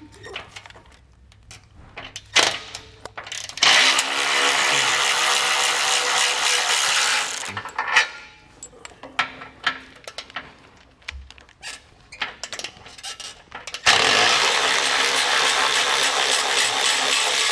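Cordless electric ratchet running in two long runs of about four seconds each, backing out the 16 mm bolts that hold a tow hook. Scattered clicks come before and between the runs.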